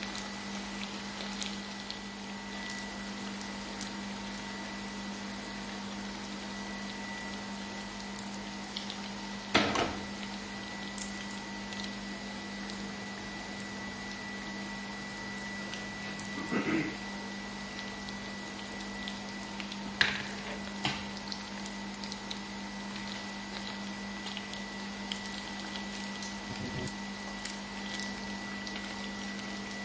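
Wonton skins frying in a pan of oil, a soft steady sizzle over a steady low hum, with a few knocks of a plastic skimmer against the pan, the loudest about ten seconds in. The oil bubbles only weakly, which the cook takes for oil not hot enough.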